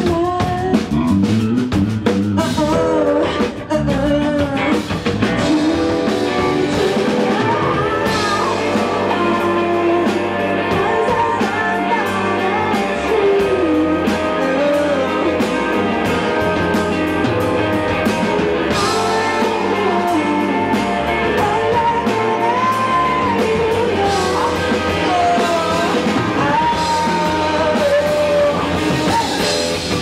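Live rock band playing: a woman's voice singing over electric guitar and a drum kit.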